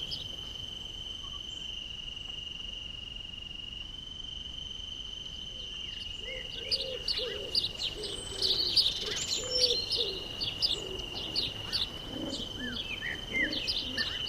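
Forest ambience: an insect sings one steady high note throughout, and from about halfway through, songbirds chirp over it with short quick calls, along with some lower repeated bird calls.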